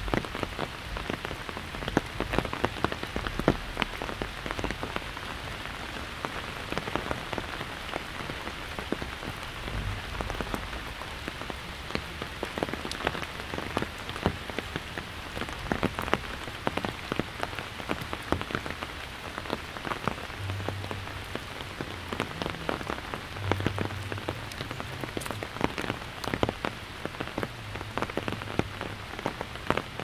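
Steady rain pattering on an umbrella held overhead, a dense patter of individual drops striking the canopy.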